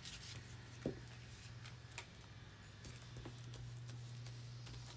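Faint handling of paper scraps being glued down with a glue stick and pressed flat by hand, with a few soft taps and clicks, over a low steady hum.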